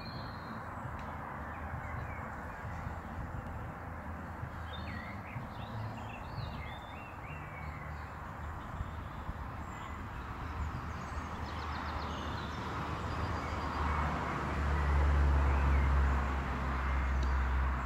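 Open-air ambience: a steady hiss, with birds calling a few times in the first half and a low rumble that grows louder near the end.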